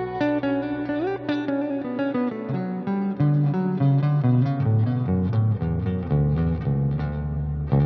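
Ibanez Axion Label RGD71ALMS seven-string electric guitar on its Fluence Modern neck pickup, outer-coil setting, played with a clean amp tone and light reverb: a melodic line of single picked notes, with a short bend about a second in and louder notes from about three seconds.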